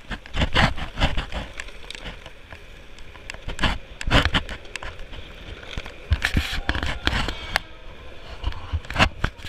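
Longboard wheels rolling over asphalt on a fast downhill run, with wind buffeting the microphone in uneven gusts.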